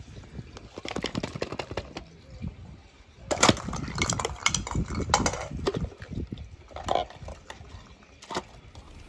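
Large hollow plastic toy egg clacking and scraping on stone tile as it is set down and pried open: a run of sharp clicks and knocks, loudest and most frequent a few seconds in.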